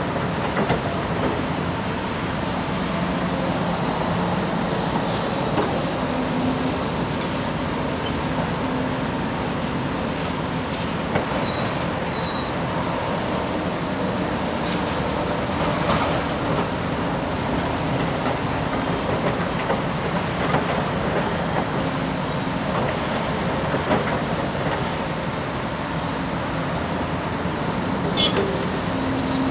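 Heavy diesel earthmoving machinery running steadily, most likely the Volvo EC380D excavator's engine working, with a shifting low engine hum and scattered sharp metallic clanks and knocks.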